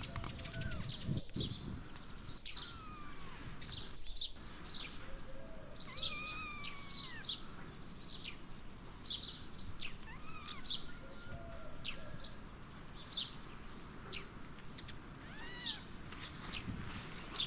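Small birds chirping: many short, high, sharp notes repeat irregularly, with a few longer rising-and-falling calls among them.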